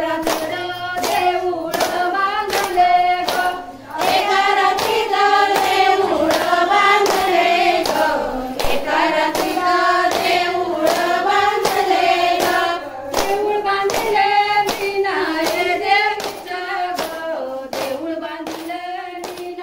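A group of women sing a traditional fugdi dance song together and keep time with a steady beat of hand claps. The singing drops out briefly about four seconds in.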